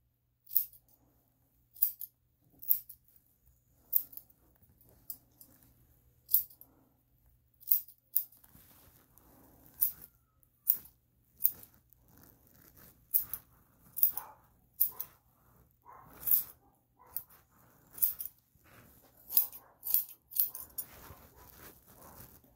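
Curved steel grooming shears snipping fur from a dog's paw in a run of short, sharp cuts. The cuts come about once a second at first and quicken to about two a second in the second half.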